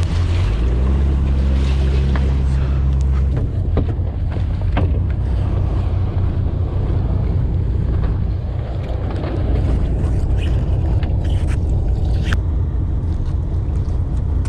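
Fishing boat's engine running with a steady low hum, stronger for the first few seconds, under scattered knocks and clatter of gear on deck and wind noise on the microphone.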